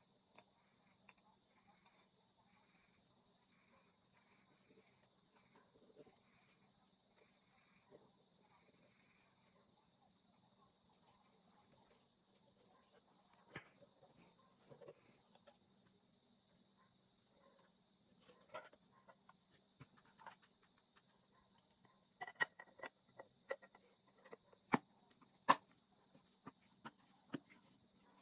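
Faint, steady high-pitched chorus of insects such as crickets, with a short run of evenly spaced chirps in the first few seconds. Near the end come several sharp clicks and taps of small parts being handled.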